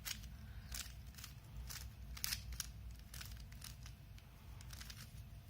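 Rubik's cube's plastic layers being turned by hand: a string of faint, irregular clicks, about a dozen turns, as a white corner piece is worked down into the bottom layer.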